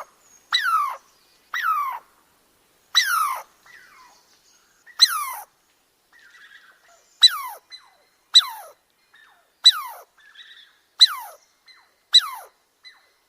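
Squirrel calling: a series of about ten short calls, each falling sharply in pitch, spaced roughly a second or two apart, with fainter scratchy sounds between some of them.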